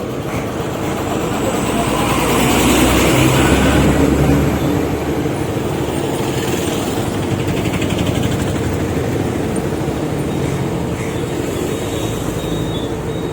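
Road vehicle engine running with steady traffic and road noise, swelling louder from about two to four seconds in.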